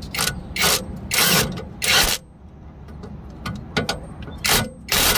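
Hand ratchet wrench clicking in a series of quick strokes as a nut on a newly fitted tie rod is tightened, with a pause of about two seconds in the middle before the strokes resume.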